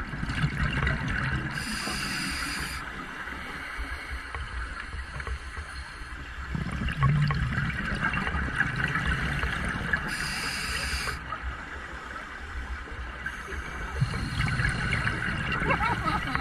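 A scuba diver breathing through a regulator underwater: a short hiss about a second and a half in and again about ten seconds in, with low bubbling rumbles from exhaled air in between.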